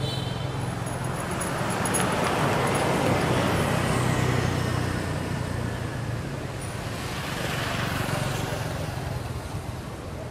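Road traffic: vehicles passing on a paved road, their tyre and engine noise swelling and fading twice, with a steady low hum underneath.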